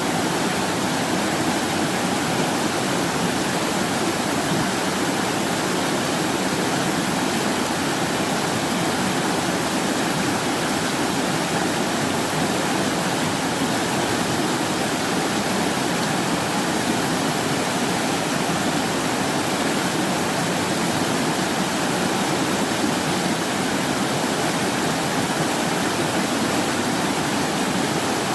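Mountain valley stream rushing steadily, a constant wash of running water with no breaks.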